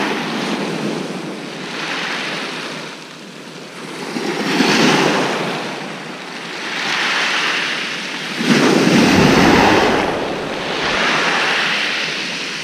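Waves breaking on a shingle beach, the surf swelling and fading every two to three seconds, with the biggest surge about two-thirds of the way through.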